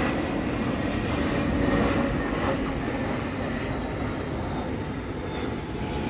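Airplane flying overhead: a steady broad rumble that swells a little, then slowly fades as it passes.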